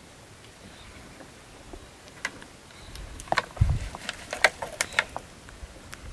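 Plastic water bottle crackling and clicking as it is pushed into a wicker basket packed with sulfur chunks, with a dull thump partway through.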